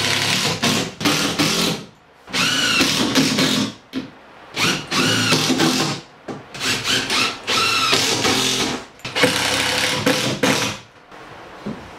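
Cordless impact driver driving screws into plywood: five runs of about two seconds each with short pauses between them, each with a whine that rises and falls over the hammering.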